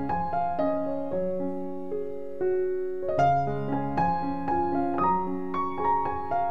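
Background piano music: a gentle melody of struck notes over a steady bass line.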